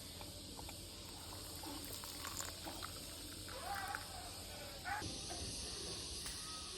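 Faint background ambience: a steady hiss with distant, indistinct voices.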